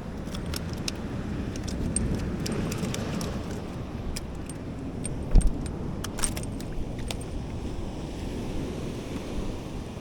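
Sea surf washing steadily against shoreline rocks, with many light metallic clicks and rattles scattered through it and one louder low thump about five seconds in.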